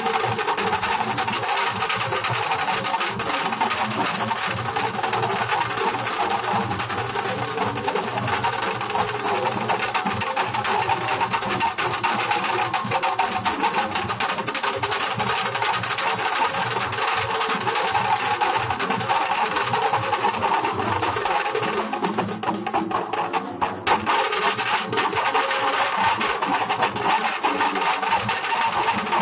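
A Nashik dhol ensemble playing, several large barrel drums beaten with sticks in a fast, dense, steady rhythm.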